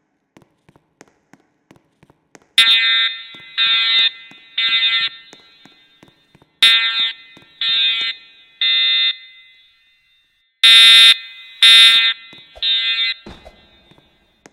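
EST voice-evacuation fire alarm system sounding the temporal-three evacuation signal. Loud half-second blasts of a buzzy alarm tone come in groups of three, with a short pause between groups, three groups in all, starting a couple of seconds in.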